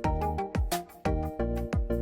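Background music with a steady beat: drum hits about every quarter second under sustained instrumental notes.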